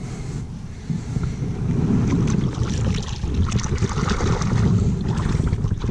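Wind buffeting the microphone with water splashing and lapping against a kayak; the splashing grows busier about two seconds in.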